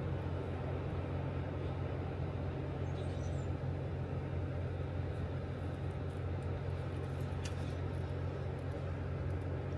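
Steady low rumble with a rushing hiss from water pouring through the dam. A faint click comes about seven and a half seconds in.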